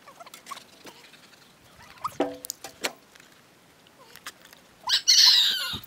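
A few faint clicks and small taps, with a sharper click carrying a brief short tone a little past two seconds in. Near the end comes a loud hissing whoosh lasting about a second.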